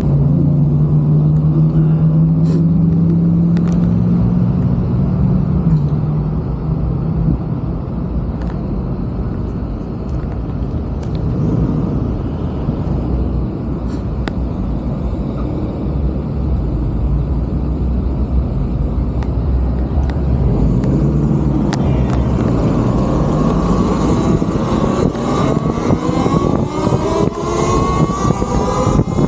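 Traffic noise at a stop, with a steady low hum for the first several seconds. After about twenty seconds the Talaria Sting MX4 electric dirt bike pulls away, its motor whine rising in pitch as it speeds up, with wind on the microphone toward the end.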